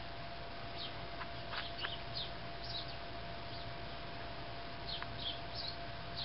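American robins calling from a flock: about ten short, high chirps and squeaks scattered irregularly, over a steady faint hum and hiss.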